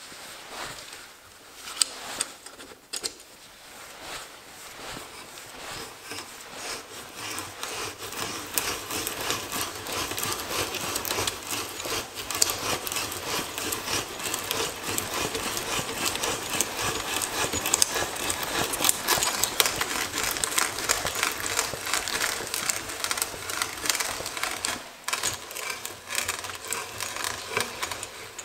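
A 1-inch auger bit turned by a hand brace boring into a wooden block: a continuous rasp made of a dense run of small clicks as the bit shaves the wood. It grows louder over the first several seconds as the bit bites in, then holds steady, easing briefly a few seconds before the end.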